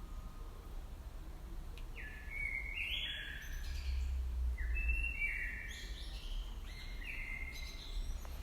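Small garden birds chirping in quick runs of short, high calls, starting about two seconds in, over a low rumble that swells around the middle.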